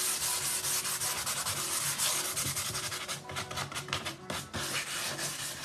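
Hand sanding with a folded sheet of sandpaper over the painted wooden door of a small cabinet: quick scratchy back-and-forth strokes, lighter and more broken in the second half. The light sanding evens out a dry-brushed paint finish.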